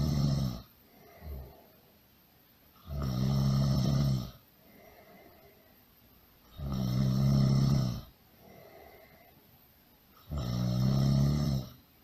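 Really loud snoring in a steady rhythm: a long, low snore about every three and a half seconds, each lasting about a second and a half, with a much fainter breath in between.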